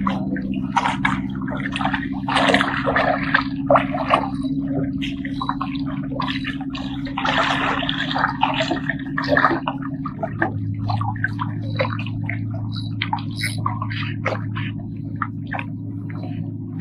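Small waves lapping and gurgling among the rocks of a rock wall, in quick irregular splashes, over a steady low hum that drops lower about ten seconds in.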